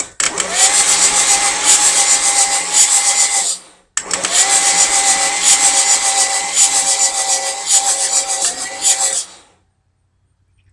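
Starter motor cranking a 6.9 diesel V8 with its glow plugs out. The engine spins steadily without firing, in two bursts of a few seconds with a short break between, turned over to purge air from the fuel system.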